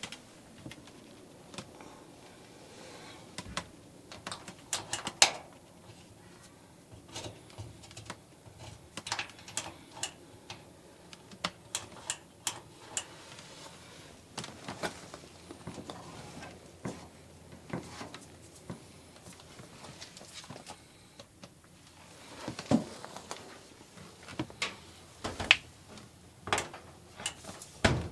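Irregular clicks, taps and knocks of tools and parts being handled during dryer repair work, with a few louder clunks in the last few seconds.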